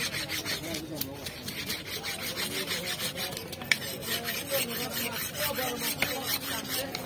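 Knife blade scraping the scales off a large red snapper: a run of quick, repeated rasping strokes.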